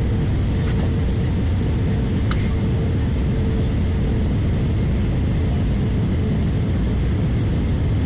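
Steady cabin noise inside an Airbus A320-214 in flight: a dense low rumble of its CFM56 engines and airflow, with a faint hum on top.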